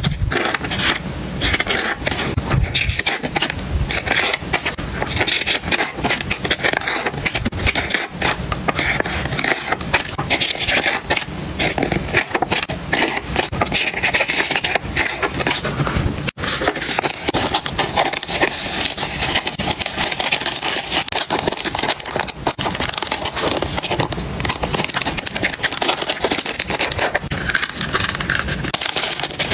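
Close-up rustling and crinkling of paper memo pads and plastic packaging being handled, with many small taps and scrapes. There is a momentary gap about halfway through.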